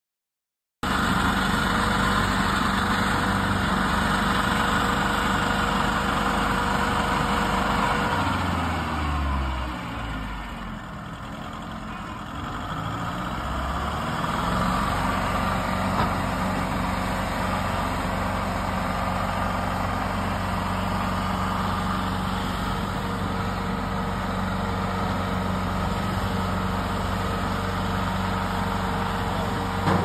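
Tracked stump grinder's engine running steadily after a second of silence; about a third of the way in its speed drops, then climbs back up over a few seconds.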